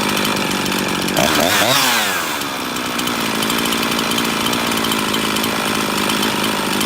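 Husqvarna 350 two-stroke chainsaw idling, blipped once to a brief rev about a second in, then dropping back to a steady idle. The idle screw has just been set so that it keeps running without stalling.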